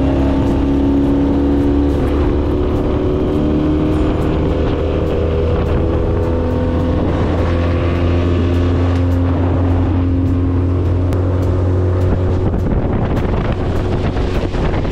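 Small outboard motor running steadily at cruising speed, pushing an aluminium dinghy along, with the rush of water under the hull.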